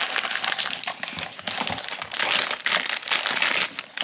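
Foil blind-box bag crinkling and crumpling in the hands as it is pulled from its cardboard box and opened. It is a dense run of crackles, busiest in the second half.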